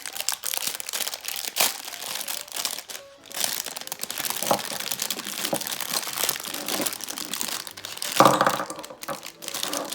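Plastic packaging crinkling and rustling as small Beyblade parts are unwrapped and handled, with many small clicks. About eight seconds in, metal parts clink together with a brief ringing.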